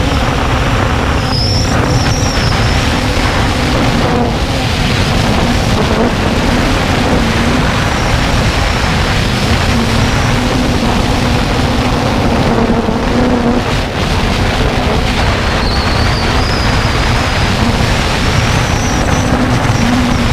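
Quadcopter drone's motors and propellers buzzing steadily on board, with a high whine that drifts up and down in pitch as the throttle changes, over a heavy rush of wind.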